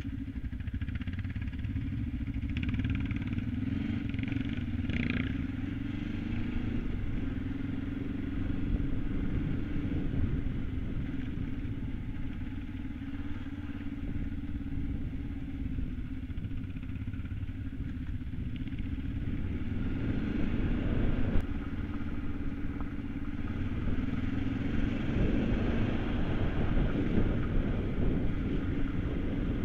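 Kawasaki KLE 500's parallel-twin engine running while riding off-road on a rough dirt track, its note rising and falling with the throttle. A single sharp knock about 21 seconds in.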